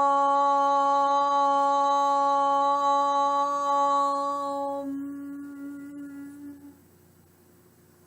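A woman's voice chanting the throat chakra's seed sound "Hum" as one long, steady note. It holds level until about five seconds in, then fades away over the next two seconds.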